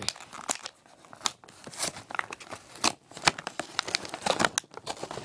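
Clear plastic blister packaging of a toy pack crinkling and cracking as it is pulled open by hand, with irregular sharp crackles and some tearing of the package's border.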